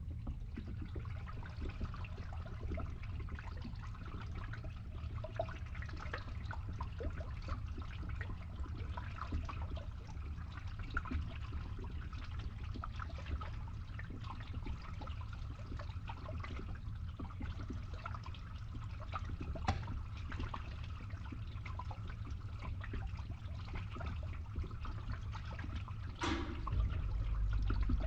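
Water trickling and splashing, with many small drips and splashes over a steady low rumble. A brief louder splash comes near the end.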